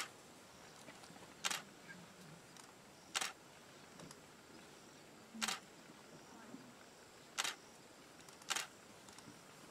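Camera shutter firing, single sharp clicks at irregular intervals of one to two seconds, about six in all, over quiet background hiss.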